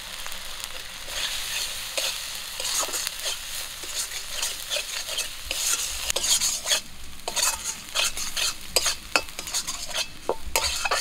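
Metal spatula stirring and scraping a thick spice paste frying in oil in a kadai: a steady sizzle with quick scrapes and knocks of the spatula against the pan from about a second in. This is the masala being fried down before water is added.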